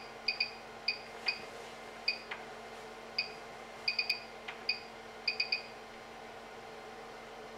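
Short, high electronic beeps from button presses on a device's control panel: an irregular string of about fifteen, some in quick runs of two or three, that stops a little over halfway through. A steady low hum runs underneath.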